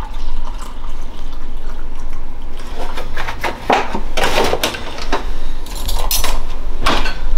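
Water poured from a plastic gallon jug into a drinking glass, with knocks and clinks as the jug and glass handle against the counter.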